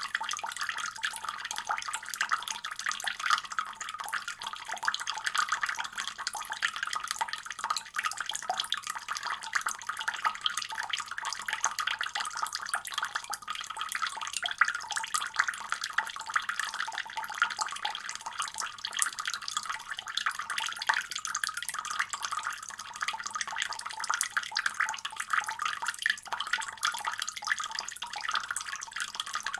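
Water running steadily from a faucet: an even splashing hiss without pauses.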